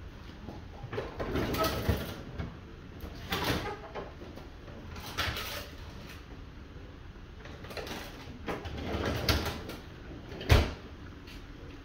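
Covered pot of curry chicken simmering on the stove, bubbling and sputtering under its glass lid in irregular bursts, with one sharper tap about ten and a half seconds in.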